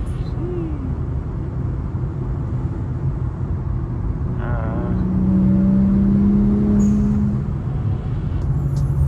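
Honda Type R being driven: steady engine and road rumble, with the engine note growing louder and holding a steady pitch for a couple of seconds about halfway through before easing back.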